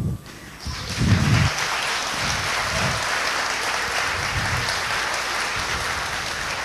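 Audience applauding. The clapping rises about half a second in and keeps up steadily.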